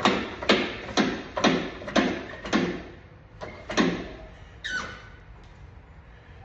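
Hammer blows on a bent wheel rim being straightened: sharp knocks about twice a second, stopping after about two and a half seconds, then two more spaced-out knocks and a short falling squeal near the middle.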